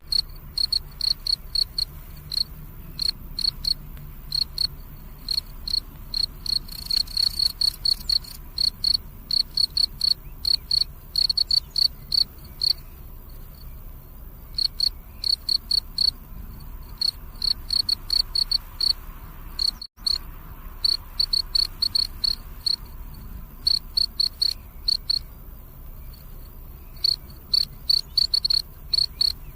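Crickets chirping: rapid high-pitched pulses in runs of chirps broken by short pauses, over a steady background hiss. A momentary dropout about twenty seconds in.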